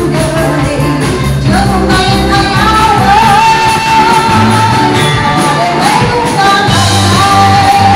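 Loud pop dance music: a singer holds long, wavering notes over a steady, stepping bass line.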